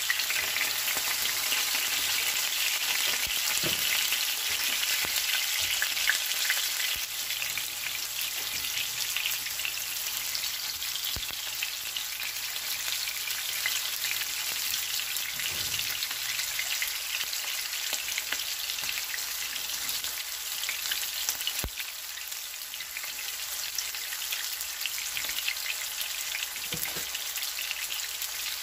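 Breaded pork schnitzels shallow-frying in hot oil in a pan, a steady dense sizzle and crackle. It is a little louder in the first few seconds, just after a cutlet is turned with a spatula, and eases slightly later on.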